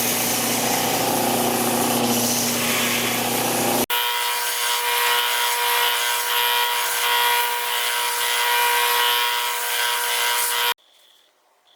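Electric power tools running steadily in two separate stretches. A lower-pitched one runs first and cuts off abruptly about four seconds in. A higher-pitched one follows and stops suddenly near the end.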